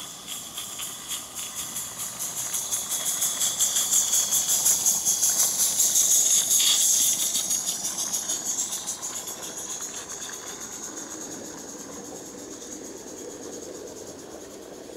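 16mm-scale live-steam model of the W&LLR locomotive Countess chuffing past with its train, rapid even exhaust beats of about four a second with a steam hiss. The beats grow louder to a peak about six to seven seconds in as the engine goes by, then fade as it moves away.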